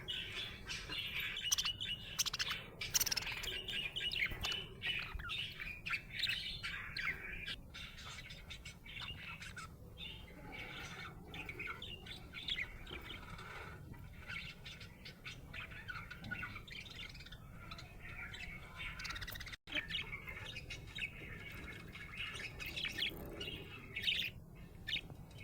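Budgerigar chirping and chattering without a pause: rapid, high chirps and short squawks, the happy chatter of a contented bird. There is a momentary break in the sound about two-thirds of the way through.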